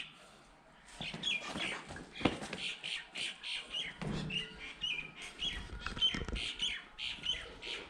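Birds calling, many short chirps and squawks overlapping in quick succession, with a few faint low thuds underneath.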